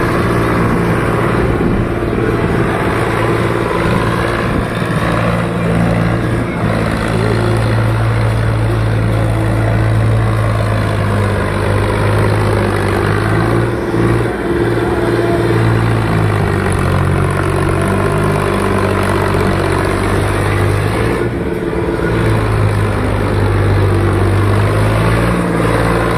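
Massey Ferguson 8055 Magnatrak tractor's 3,300 cc diesel engine running as the tractor is driven, its speed rising and falling several times.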